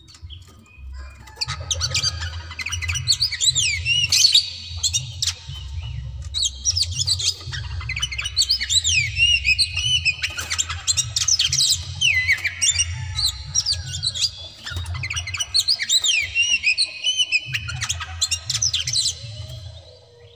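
Oriental magpie-robin singing a fast, continuous song of quick rising and falling whistles mixed with harsh chattering notes, with a brief lull about two-thirds of the way through. A low rumble runs underneath.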